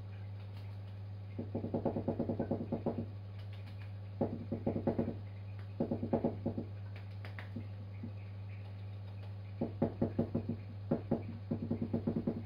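Resin filter housing freshly filled with resin beads being shaken in five short bursts, the beads and housing giving a quick run of rattling ticks each time, to settle the resin and drive out air pockets.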